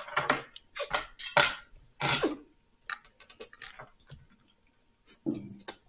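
A few short, breathy coughs, followed by a scatter of light clicks and taps.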